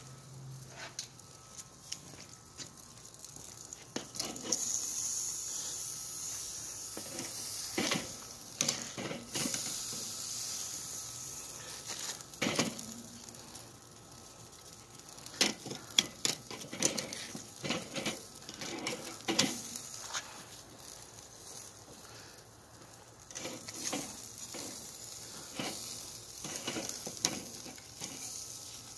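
Beef back ribs sizzling on the grate over hot charcoal: a steady hiss, with scattered sharp clicks and knocks through it.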